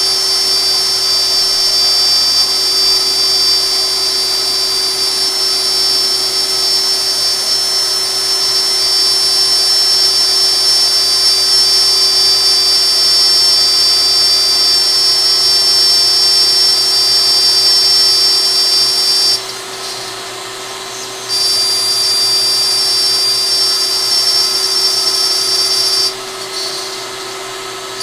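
DeWalt compact router spindle on a LowRider CNC running steadily as the machine mills, a high whine over the cutting noise. The sound drops off sharply twice for a second or two, about two-thirds through and again near the end.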